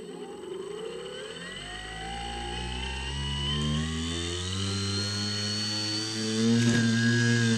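Skywalker X7 model plane's electric motor and propeller running up, its whine climbing steadily in pitch as the throttle opens, then dropping slightly near the end.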